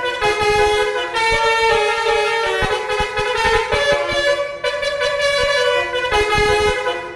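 Indonesian tour bus's telolet basuri musical air horn playing a tune, the notes stepping from pitch to pitch, with short breaks between phrases.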